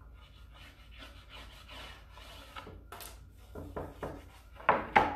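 Fingertips rubbing a rub-on décor transfer down onto a deeply grooved, textured wooden sign to seat it and work out air bubbles: a series of dry scuffing strokes, with two louder ones near the end.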